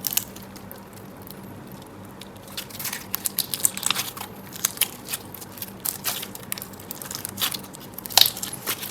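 Hands squishing and pressing slime, making irregular sticky clicks and small pops. They are sparse at first, come more often from about three seconds in, and the loudest comes near the end.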